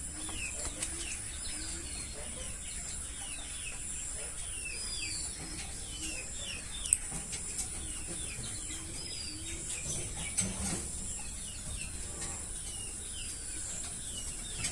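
Birds calling: a steady stream of short, quick high chirps over fainter low cooing calls, typical of domestic pigeons in a loft. A steady high hiss runs underneath, with a couple of sharp clicks.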